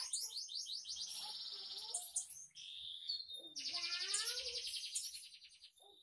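Red siskin singing a varied song made up of other birds' calls learned by mimicry. It runs fast trills of high repeated notes and lower swooping notes, with a held whistle about halfway through.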